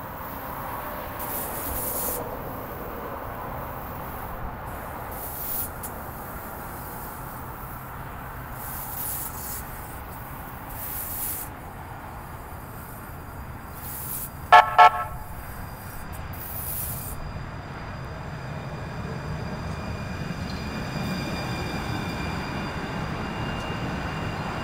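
Light rail car coming along the track and sounding two short toots of its horn about halfway through. Near the end its running noise grows louder with a faint high whine as it draws close.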